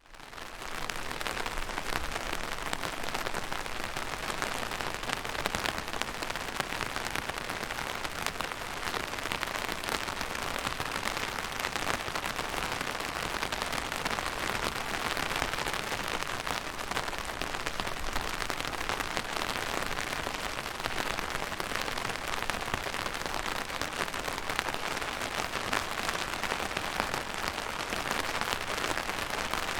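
Steady rain falling on a surface: a dense hiss of many fine drop ticks, fading in over the first second.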